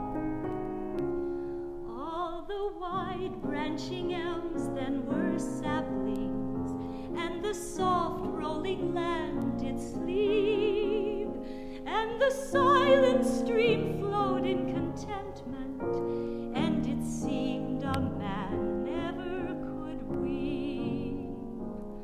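A woman singing a slow song with vibrato, accompanied by piano.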